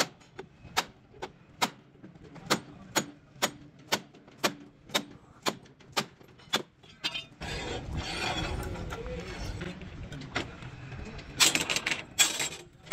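Hammer blows ringing on a steel truck chassis rail, about two a second, as the frame is straightened by hand. About seven seconds in they give way to a steady rushing noise, with a few louder knocks near the end.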